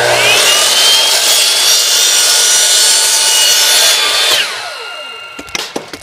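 Electric miter saw starting up with a rising whine and cutting through PVC pipe, running loud and steady for about four seconds. It is then switched off and winds down with a falling whine, and a few sharp knocks follow near the end.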